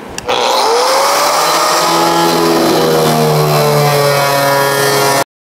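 Corded angle grinder switched on about a third of a second in, its whine rising as it spins up. It then runs steadily while cutting into the steel quarter panel of a 1970 Chevrolet El Camino, and stops abruptly just before the end.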